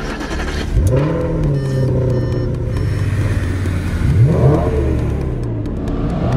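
Audi RS5's 4.2-litre V8 starting about a second in, its revs flaring and settling into a steady idle, then a sharp rev blip a little after four seconds, with revs rising again near the end.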